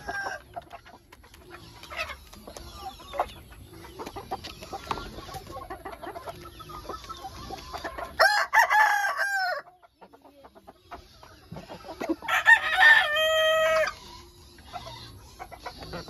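Rhode Island White chickens clucking and pecking at pellets in a wooden feed trough, with many short taps. A rooster crows twice, about eight and twelve seconds in, each crow lasting over a second.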